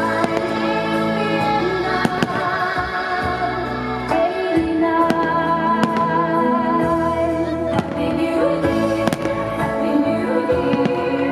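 Fireworks bursting overhead with a few sharp bangs, over continuous loud music with singing.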